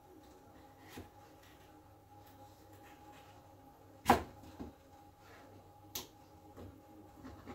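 A few scattered knocks and clicks from handling things in a kitchen, the loudest a sharp knock about four seconds in and another sharp click about six seconds in, over a faint steady hum.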